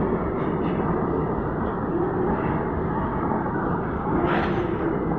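Freight train's open goods wagons rolling past close by: a steady rumble and rattle of wheels on the rails, with a brief sharper burst of noise about four seconds in.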